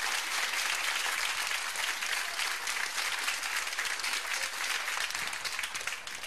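Studio audience applauding, dense steady clapping that tapers off near the end.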